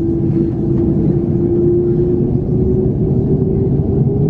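Airbus A330-300's jet engines heard inside the cabin: a steady low rumble with an engine whine that rises slowly in pitch.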